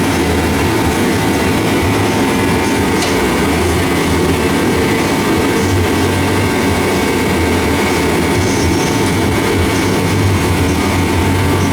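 A steady, loud mechanical rumble with a constant low hum that does not change.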